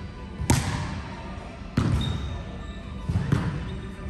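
A volleyball being struck and bouncing on a hard indoor court: three sharp thuds about a second and a half apart.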